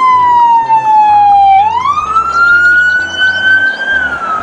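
Police car siren on a slow wail: one long tone falling in pitch, rising again about a second and a half in, and starting to fall once more near the end.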